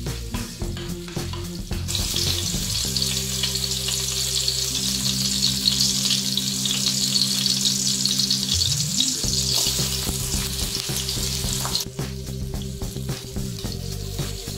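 Minced garlic frying in oil in an aluminium wok: a steady, loud sizzle that swells about two seconds in and cuts off abruptly near the end. Spatula strokes scrape the pan before and after it.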